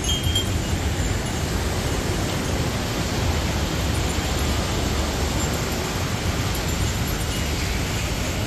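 Wind buffeting the microphone: a steady rushing noise with a heavy low rumble.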